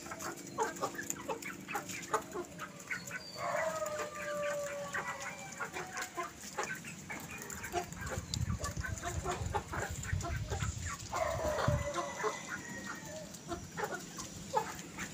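Rhode Island White × Rhode Island Red hens clucking softly while pecking at scattered grain on gravel, with many quick ticks of beaks on the ground. Two longer drawn-out calls stand out, about four seconds in and again near eleven seconds.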